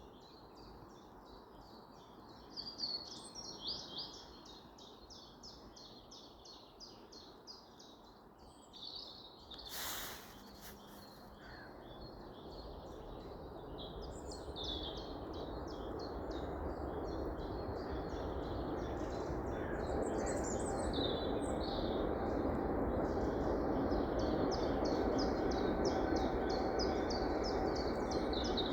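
Several songbirds singing over one another in an early-morning dawn chorus, many phrases made of rapid repeated notes. About ten seconds in there is a brief knock, and from then on a steady rushing background noise grows louder.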